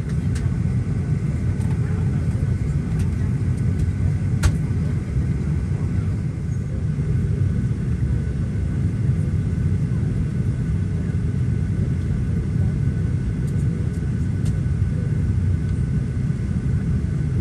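Steady low rumble of a Boeing 737-800 cabin, with a faint steady hum higher up and a few light clicks, the plainest about four seconds in.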